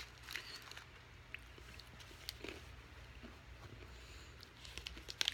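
Faint chewing of snack peas, with scattered soft clicks and a short run of clicks near the end.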